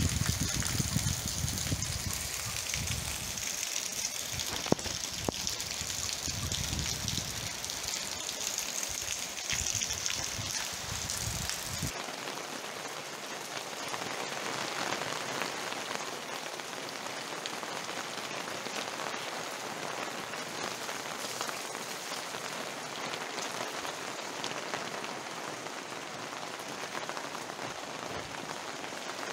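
Steady rain falling on muddy garden ground and puddles, with a low rumble under it and one sharp tick about five seconds in. About twelve seconds in the sound changes to an even hiss of rain heard from under a roof, with the low rumble gone.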